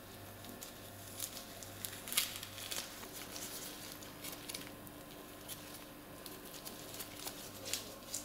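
Orange peel being torn off by hands in plastic gloves: faint tearing and crinkling with scattered small clicks, over a low steady hum.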